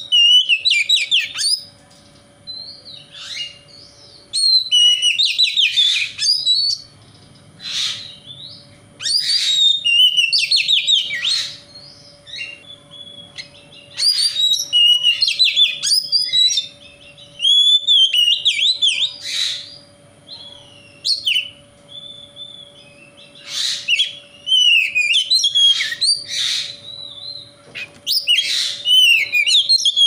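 Oriental magpie-robin (kacer) singing in bursts of quick, varied whistles and chirps, each burst one to three seconds long with short pauses between. It is a loud song used as a lure to provoke caged kacer. A faint steady hum lies underneath.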